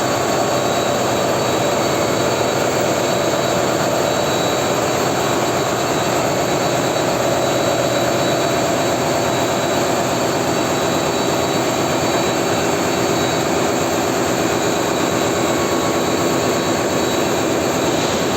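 Steady drone of running diesel machinery in a ship's engine room, loud and unbroken.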